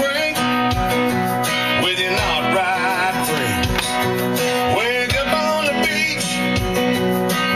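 Country music with strummed acoustic guitar and a singer, playing from the Chevrolet Tahoe's Bose stereo, which is tuned to an FM country station, heard inside the cabin.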